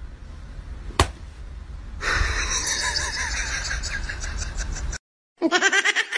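A hand slaps a fabric cushion once, a sharp smack about a second in. About two seconds in a louder, noisy stretch starts and runs for about three seconds, then cuts off suddenly; after a short silence comes a rapid run of repeated high pitched tones.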